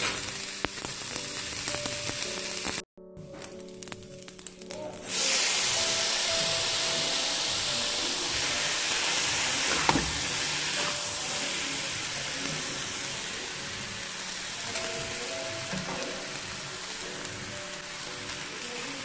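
Cold cooked rice with spring onions stir-frying in a hot non-stick wok, a steady sizzle as a spatula tosses it. The sound cuts out briefly about three seconds in, then the sizzle comes back louder.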